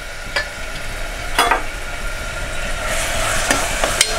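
Chopped onions sizzling in hot oil in a pressure cooker, with a metal spoon scraping and knocking against the pot as they are stirred. There are several sharp knocks, the loudest about a second and a half in, and the sizzle grows louder near the end.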